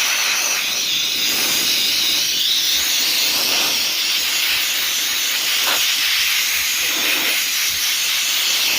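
Steady, loud hiss of rushing air, even and unbroken, with no motor whine or pitched tone in it.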